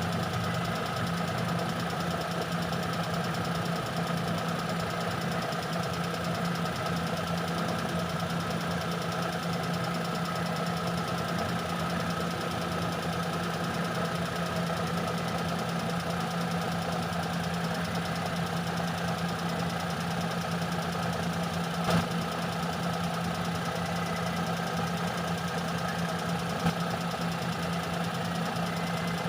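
Engine with a freshly overhauled carburetor idling steadily while its idle speed is checked on a tachometer, with two brief clicks in the last third.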